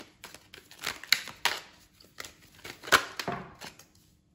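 Deck of tarot cards being shuffled by hand: a quick run of card flicks and slaps, the loudest about three seconds in, dying away shortly before the end.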